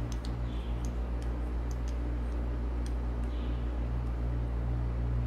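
Torque wrench ratchet ticking in irregular sharp clicks while a bolt on a Caterpillar 3406B diesel engine is tightened toward 100 foot-pounds, over a steady low hum.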